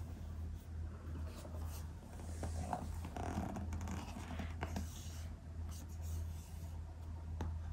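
A cardboard product box being handled and its lid lifted open: scraping and rubbing of cardboard with a few light clicks, over a steady low hum.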